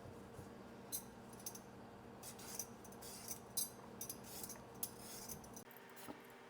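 Potatoes being peeled by hand: a run of quick, sharp scraping strokes across the skin, about a dozen over the first five seconds, over a faint steady background hum whose low part cuts off near the end.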